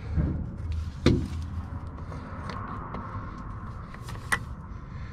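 Hands fitting a rubber hose and plastic connectors onto a car's EVAP canister: scattered plastic clicks and rubbing, with a sharp click about a second in and another just after four seconds, over a low steady rumble.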